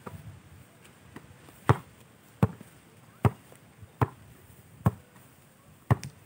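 A basketball being dribbled: six sharp, even bounces a little under a second apart, from a little under two seconds in.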